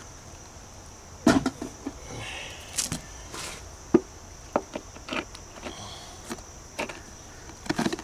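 Scattered light clicks and knocks as a thin piece of natural stone veneer, buttered with construction adhesive, is handled and pressed into place against a wall. A steady high drone runs underneath.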